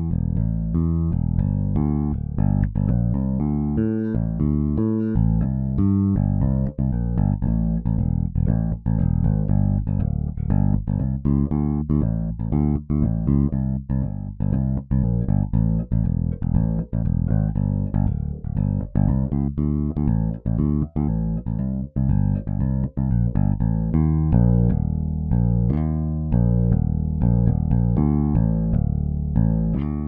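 Sampled electric bass in EZbass (Vintage bass, clean DI tone) playing syncopated contemporary R&B MIDI bass grooves at 119 BPM, one pattern following another.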